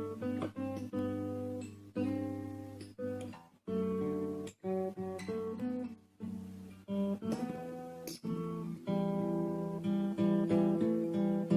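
Acoustic guitar strummed in chords, broken by short pauses between phrases, with a fuller, unbroken run of strumming over the last few seconds.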